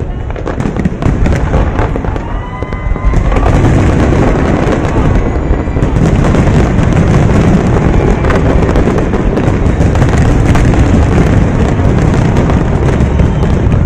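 Fireworks display going off in a rapid barrage of booming shell bursts and crackling, which grows denser and louder about three seconds in.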